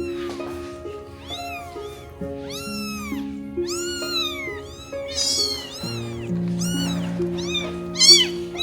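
A cat meowing over and over: a quick run of high, rising-and-falling cries, each about half a second long. Background music with long held chords plays under them.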